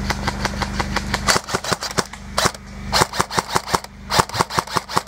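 Airsoft rifles firing: sharp plastic-BB shots in quick runs of several, starting about a second in. Under the first second there is a steady low hum that then stops.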